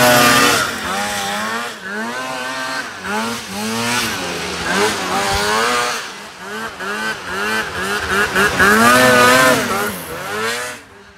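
Two-stroke snowmobile engine revving up and down over and over, its pitch rising and falling in quick arches about twice a second, with a longer, louder rev near the end before it drops off.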